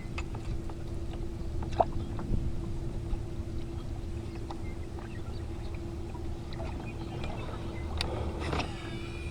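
Wind rumbling on the microphone over a steady low hum, with a few light clicks and knocks from a fishing kayak, two of them near the end.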